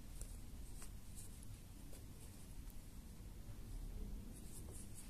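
Faint handling sounds of crocheting: a crochet hook and yarn being worked through the edge of a felt sole, with a few light ticks over low room hum.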